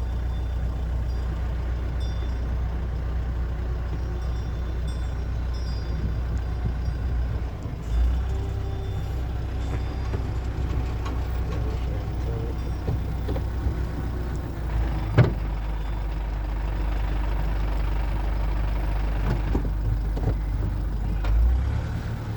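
Steady low rumble of a moving vehicle, with a single sharp knock about fifteen seconds in.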